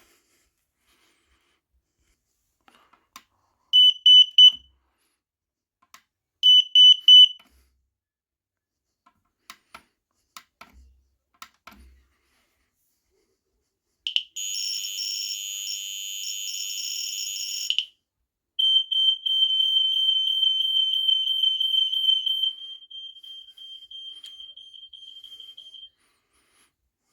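Home smoke alarms sounding under test. First come two groups of three short, shrill beeps. Then a harsher continuous alarm sounds for about four seconds, followed by a steady high-pitched alarm tone that drops in loudness partway through and stops near the end.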